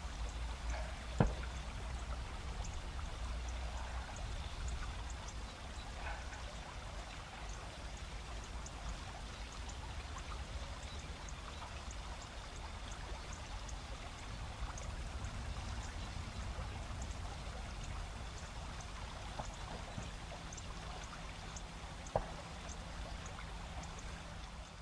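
River rapids running steadily, with faint chirps of autumn insects on top. Two brief sharp clicks, about a second in and near the end.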